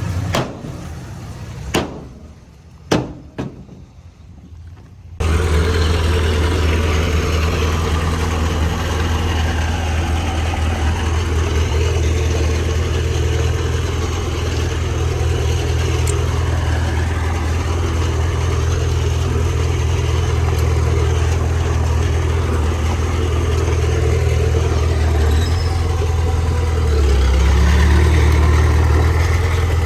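A heavy diesel engine of earthmoving machinery running steadily with a low drone, growing a little louder near the end. Before the engine sound comes in, about five seconds in, there are a few quieter seconds with several sharp clicks.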